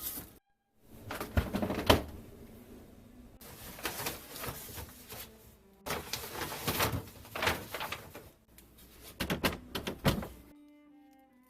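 Kitchen handling sounds: a string of knocks, clicks and rustles as food packages and storage containers are moved and set down, with a sliding, door-like sound among them.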